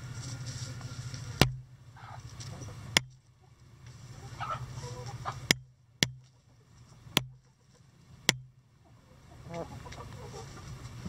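Backyard hens clucking softly as they forage. Several sharp clicks come a second or two apart, over a steady low hum.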